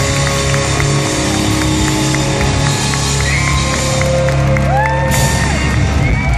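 Live rock band playing on stage in an arena, with sustained low notes and steady drum ticks, while the crowd cheers and whoops over the music.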